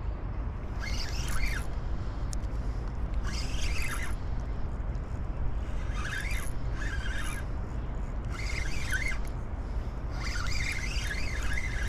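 Spinning reel cranked in five short spurts, each about a second long and two to two and a half seconds apart, as a fish is played on the bent rod. A steady low rumble lies underneath.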